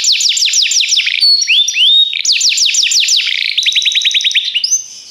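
Belgian canary singing a fast, varied song. It gives runs of quick downward-sweeping notes, a few drawn-out rising notes, then a rapid trill of short notes, and stops near the end.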